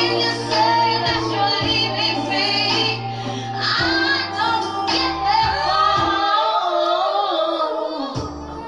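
Background pop song with a female lead vocal over a steady bass line and beat.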